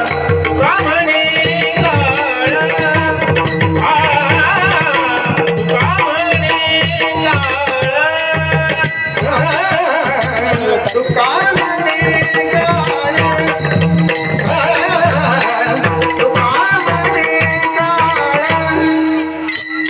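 Marathi Warkari kirtan music: male voices sing a drawn-out, ornamented devotional tune. A mridang drum and small hand cymbals beat a steady, even rhythm under the singing.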